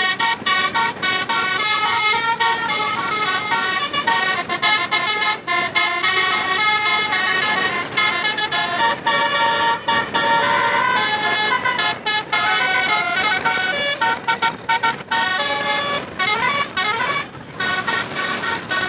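Bus basuri horn, an Indonesian telolet multi-tone musical horn, playing a tune of stepped held notes over road and engine noise, with a short break near the end.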